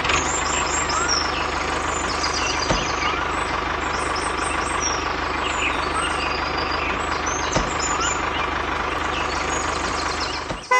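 Tractor engine running steadily, with short high chirps over it now and then.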